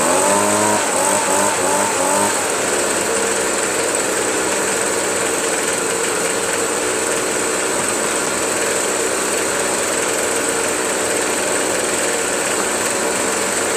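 Ryobi 25.4cc gas backpack leaf blower engine idling steadily.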